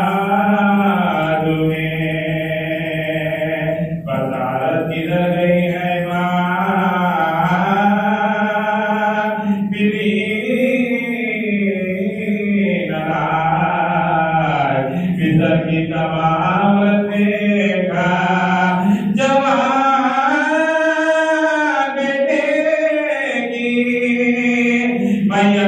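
A man's solo voice chanting a devotional recitation into a microphone, in long melodic phrases with slow rises and falls in pitch and short breaths between them.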